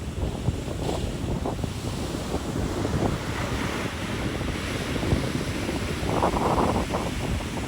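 Ocean surf breaking and washing up the beach, with wind buffeting the microphone. A wave's hiss swells through the middle, and the wind gusts on the microphone grow stronger near the end.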